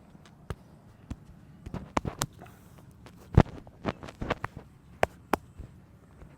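Hands slapping and tapping on the body during a massage: about a dozen sharp, irregular smacks, the loudest about three and a half seconds in.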